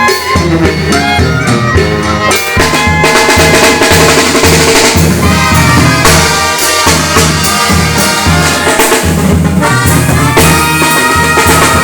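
Mexican banda music: a brass band playing, with trumpets over a pulsing low bass line and drums.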